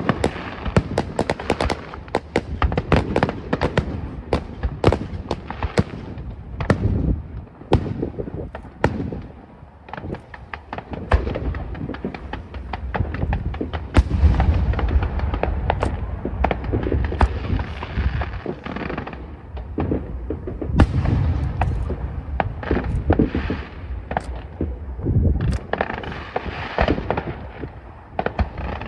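Aerial fireworks show heard from about 450 m away. Shells go off in a fast, dense run of overlapping booms and sharp bangs over a continuous low rumble, thinning briefly a few times and building again.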